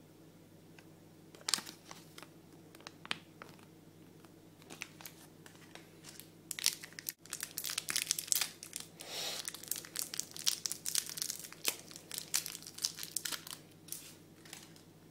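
Small clear plastic bag crinkling and tearing as fingers pull it open: a few scattered crackles at first, then a dense stretch of crinkling from about six seconds in until near the end.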